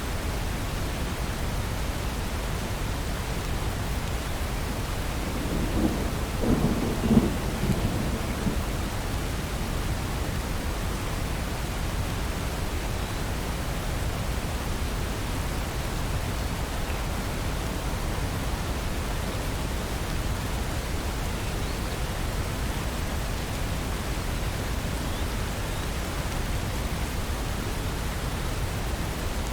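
Steady rain, with one roll of thunder starting about six seconds in that rumbles for around three seconds before fading back into the rain.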